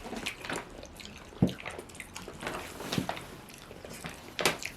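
Close-up wet mouth sounds of eating: irregular smacks and squishy clicks while chewing soft salmon and buttered rice.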